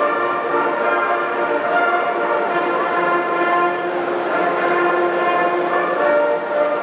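Music of sustained, held chords that change every second or two, with a reedy, horn-like tone.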